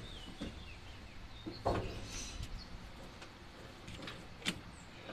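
A few scattered knocks and clicks, the sharpest about four and a half seconds in, over a low steady hum, with faint bird chirps.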